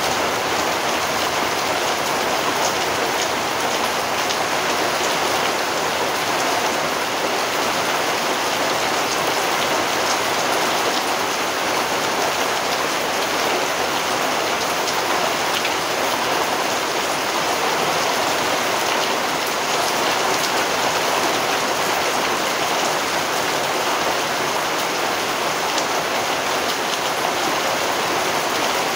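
Steady rain falling: an even hiss of many drops that keeps on without let-up.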